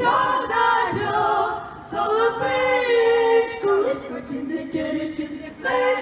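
A small choir singing unaccompanied, several voices together. The singing breaks off briefly near the end and then starts again.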